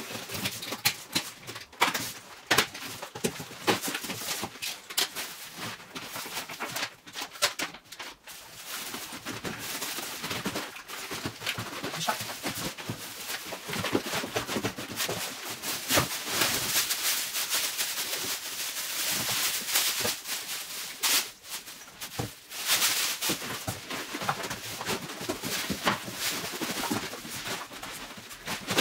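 Cardboard box being opened and unpacked by hand: scraping and rustling of cardboard flaps and plastic wrapping, with many small irregular clicks and knocks. The rustling is densest about halfway through.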